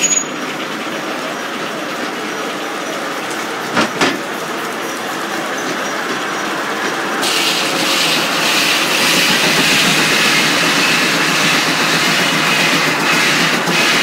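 Belt-driven Reeves sawmill machinery running steadily, with two short knocks about four seconds in. About halfway through, the sound grows louder and brighter as the turning belt, pulleys and feed rollers come close.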